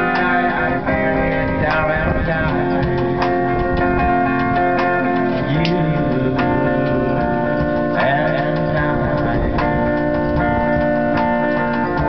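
Live music: a strummed guitar with men singing along, over long held notes.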